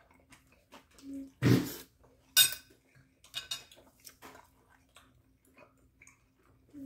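Metal spoon clinking and scraping against a ceramic plate while eating, in scattered small clicks with one sharp clink about two and a half seconds in. A dull thump comes just before it, about a second and a half in, and a faint steady hum runs underneath.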